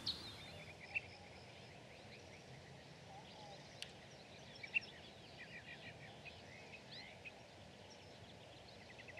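Faint birdsong: several small birds chirping and giving quick trills over a steady soft hiss, with a couple of brief clicks.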